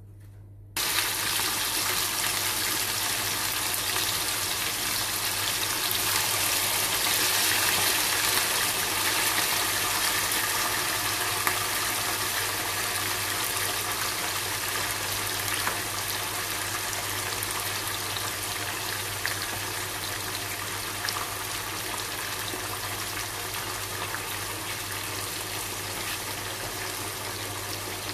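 Sliced meat sizzling in oil in a nonstick frying pan. The sizzle starts abruptly about a second in as the meat goes into the hot pan, with scattered crackles and pops, and slowly eases off as it cooks in its own juices.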